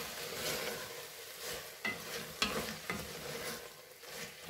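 A spoon stirring and scraping hot mushroom masala against the metal of an open pressure cooker, in repeated strokes about twice a second, over a light steady sizzle of the mushrooms frying.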